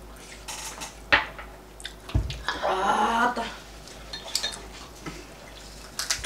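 Dishes and cutlery clinking at a meal table: scattered sharp clicks and a dull knock about two seconds in, with a brief murmur of a voice around the middle.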